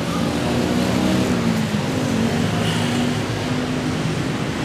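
Motorbike and scooter traffic passing on a busy street: a steady engine hum whose pitch drifts slowly as the bikes go by.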